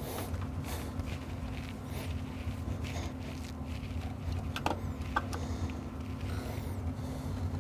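Screwdriver turning a screw on an amplifier's circuit board: faint scraping, with two short squeaks a little past halfway, over a steady low hum.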